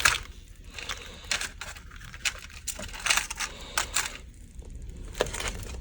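Irregular light clicks and taps from kitchen utensils being handled, a dozen or so spread unevenly across the few seconds.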